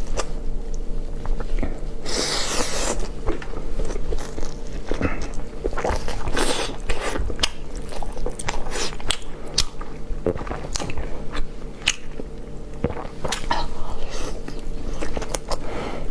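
Close-up chewing and biting on a chicken drumstick: a steady run of wet smacks and short crunchy clicks of meat being chewed off the bone.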